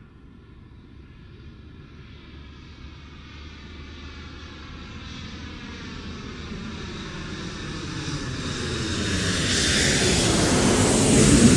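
An airplane's engines approach, growing steadily louder over about ten seconds, with a slowly sweeping, shifting tone as the plane nears overhead.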